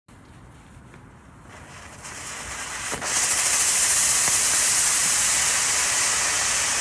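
Firework fountain from a Brothers Pyrotechnics selection being lit. A faint fizzing builds, then about three seconds in it flares into a loud, steady hissing spray of sparks with no bangs.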